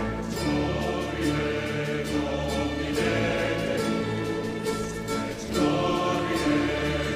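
Background music with a choir singing sustained chords over an orchestral accompaniment.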